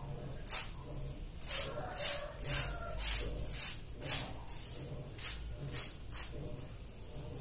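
A rug being scrubbed by hand on a wet concrete floor: short scrubbing strokes about two a second, fewer and lighter after about four seconds.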